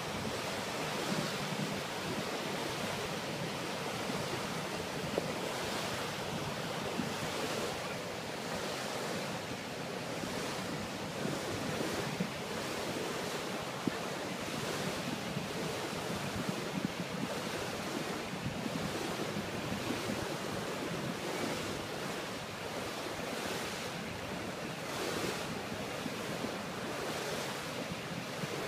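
Wind buffeting the microphone over steady rushing and splashing water around a boat under way, with a few brief sharper slaps.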